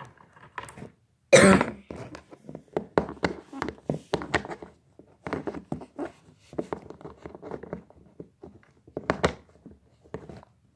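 A single cough about a second and a half in, the loudest sound, followed by many small irregular taps and knocks from plastic toy figures being handled and set down.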